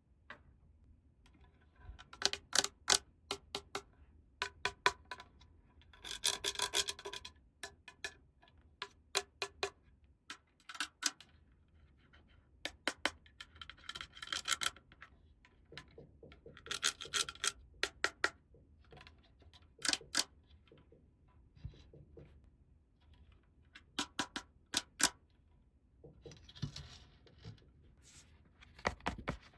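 Small plastic toy pieces being handled: irregular sharp clicks and taps, with a few longer stretches of rubbing and scraping.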